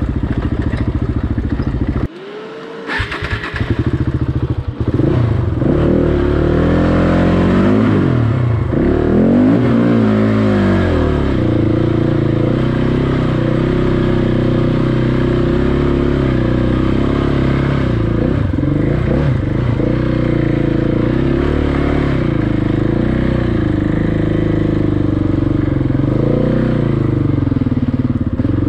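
Off-road motorcycle engine running under way, its revs rising and falling again and again with the throttle. The sound drops out sharply about two seconds in, then the engine comes back up.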